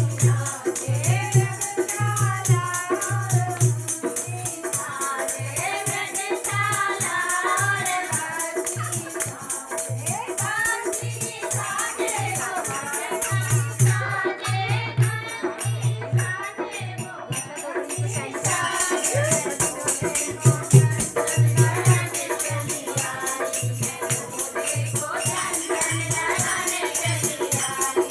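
Hindi devotional song to Shiva: singing over a steady beat, with shaker-like rattling percussion keeping time.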